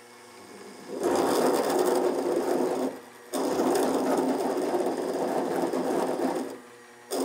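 Benchtop lathe cutting a 29 mm hole in aluminium. The machine hums lightly at first; about a second in, the tool bites and a loud, rough grinding chatter sets in. It eases off briefly near three seconds, bites again until near the end, then pauses before biting once more. The tool grabs and judders as it feeds in, a sound the machinist finds unpleasant.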